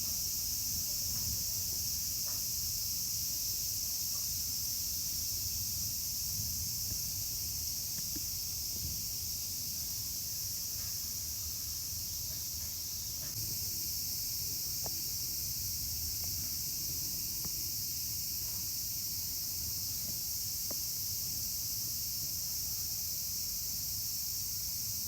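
A steady high-pitched hiss or chirring that never changes, over a low rumble, with a few faint scattered clicks.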